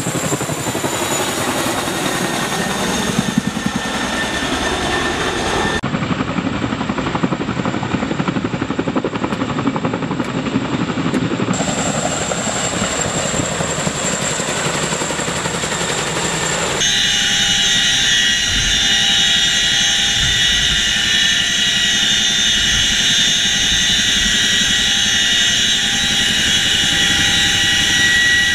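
CH-47 Chinook tandem-rotor helicopter hovering and flying low, its rotors and twin turboshaft engines running steadily. The sound changes abruptly three times, and in the last stretch a strong, steady high-pitched turbine whine stands out.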